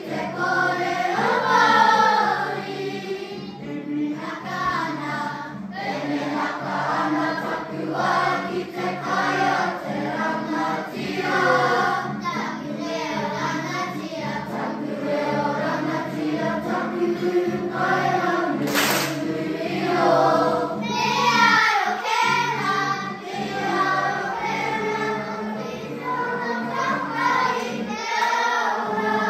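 A school kapa haka group of children singing a Māori action song (waiata-ā-ringa) in unison, in full voice.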